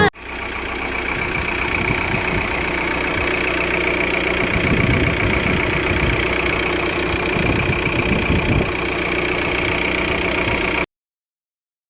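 VW Sharan 1.9 TDI diesel engine, freshly rebuilt, idling steadily; the sound fades in over the first second or two and cuts off suddenly near the end.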